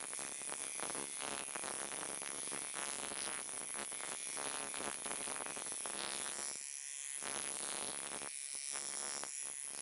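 Electric rotary peening tool spinning a shot-studded flapper-peening flap against a metal Almen strip under load, a steady buzzing flutter from the flap slapping the strip at about 4200 RPM. The sound thins briefly a few times in the second half.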